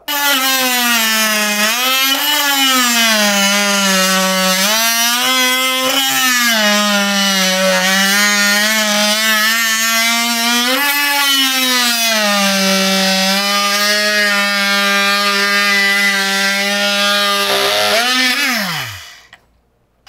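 HART 20V cordless oscillating multi-tool fitted with its stock blade, plunge-cutting a wooden board: a loud, steady motor hum whose pitch sags under load and lifts briefly a few times as the load eases. Near the end it is switched off and winds down with a falling tone.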